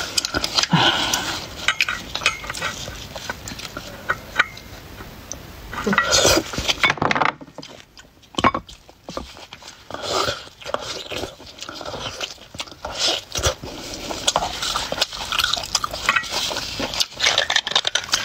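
A metal spoon scraping and clinking inside braised beef marrow bones while the marrow is dug out, with close-up sucking and eating of the marrow in between.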